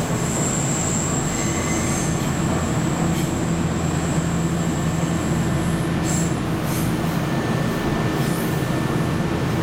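Inside a moving Nankai 6300 series electric commuter car: the steady running rumble of wheels on rail and the car's drive. A thin, high wheel squeal sounds over it for the first two seconds or so, and a few brief high scrapes come about six seconds in.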